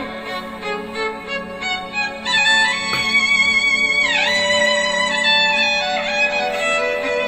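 Slow instrumental music: a violin-like melody of long held notes with vibrato, sliding down between notes a few times, over a steady low held tone.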